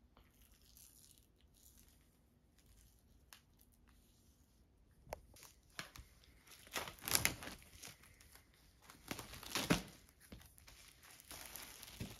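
Plastic shrink-wrap being torn and crinkled off a vinyl LP jacket: scratchy rustling and small clicks, with two louder tearing bursts in the second half.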